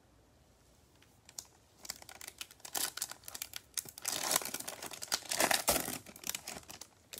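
A Bowman Chrome baseball card pack's foil wrapper crinkling and tearing as gloved hands rip it open, a quick run of sharp crackles that starts about a second in and is loudest in the second half.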